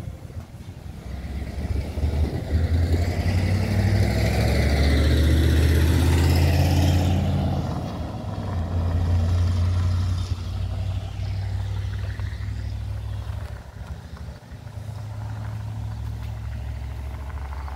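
A road vehicle driving past, its engine and tyre noise swelling to a peak about five seconds in and then fading, followed by a steady low rumble.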